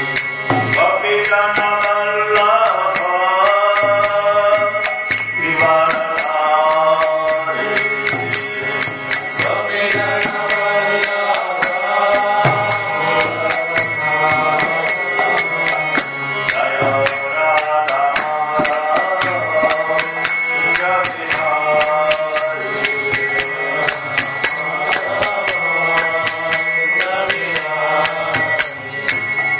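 Devotional chant sung to a melody, with a steady metallic beat of small hand cymbals (kartals) and a steady high tone underneath.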